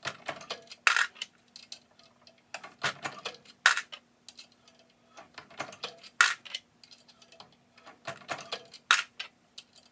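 Starline 450 Bushmaster brass cases clinking and rattling as they are resized one after another: sharp metallic clinks, a loud one about every two and a half seconds, with softer clicks between.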